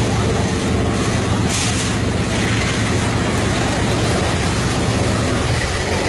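Fairground thrill ride running: a steady, loud low rumble of its machinery, mixed with crowd noise.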